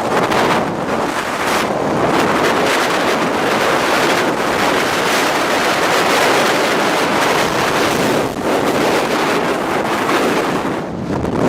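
Hurricane-force eyewall wind and driving rain beating on a moving car, a dense steady rush that eases briefly twice, about eight seconds in and near the end.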